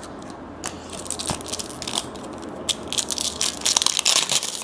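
Trading-card pack wrapper being torn open and crinkled by hand: a run of sharp crackles that grows denser and louder from about a second in.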